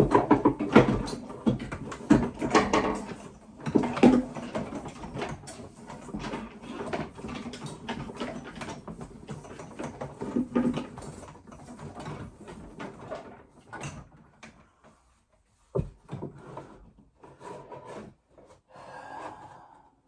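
Irregular knocks, clicks, scrapes and rustles of tools, cable and wooden boards being handled, busy at first and then sparser, with one sharp knock about three quarters of the way through.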